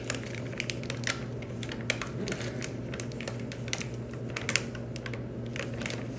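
Crinkly plastic bag of plaster powder being shaken and squeezed as the powder is emptied out, an irregular run of sharp crackles and ticks.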